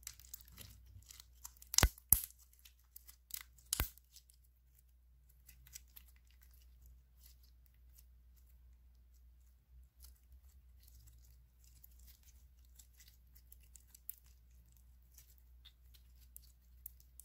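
Clear glitter slime being squeezed and folded by hand, crackling stickily, with a few loud sharp clicks about two and four seconds in, then fainter crackling.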